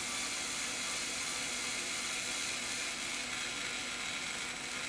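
Cordless electric screwdriver whirring steadily at constant speed as it backs a T-10 security Torx screw out of a battery pack's plastic case.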